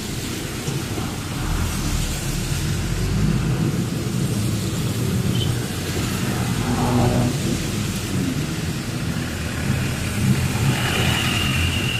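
Steady low rumble of a truck's engine and its tyres on a wet road, heard from inside the cab. A thin high tone comes in near the end.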